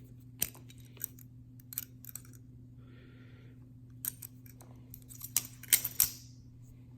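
Titanium-handled Hinderer Nieves balisong being handled and swung, its metal handles and latch giving a string of sharp, irregular metallic clicks, with a cluster of them near the end.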